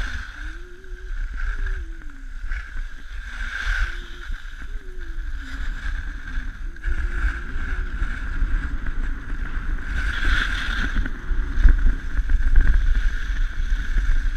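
Wind buffeting a GoPro Hero3 Black's microphone and skis hissing over packed snow on a downhill run: a steady low rumble that swells louder about four seconds in and again around ten to twelve seconds in.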